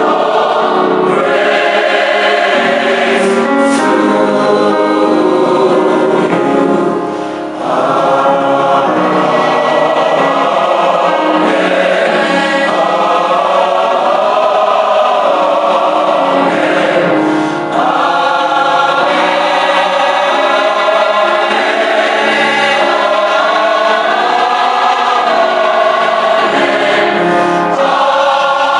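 Church choir singing a gospel song, held phrases with two short breaks between them.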